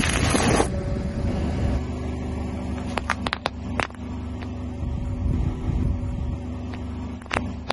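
A car tyre rolling onto a wrapped pack of biscuits, which crunches under it for a moment at the start, over the car's steady engine running. About three seconds in come a few sharp cracks as toothpaste tubes are crushed, with another crack near the end.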